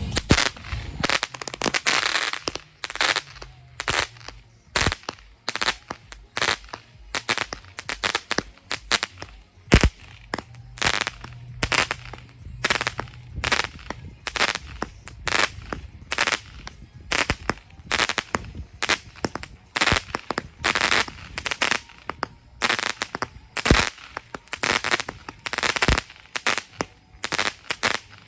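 A 50-shot, 200-gram firework cake firing shot after shot in an irregular rapid string of sharp bangs, about one or two a second, until it stops suddenly.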